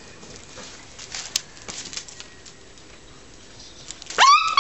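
Springer spaniel puppy giving a loud, high-pitched whine near the end that slides sharply up in pitch and then holds; before it, only faint scuffs and a single sharp click.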